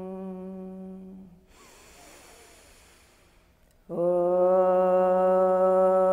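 Chanted 'om', held on one steady pitch: one om fades out about a second in, a short quiet pause follows, and the next om starts about four seconds in, louder.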